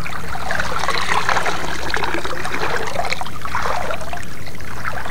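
Shallow seawater splashing and sloshing in irregular swells as a wader's hands and legs move through it, over a steady low hum.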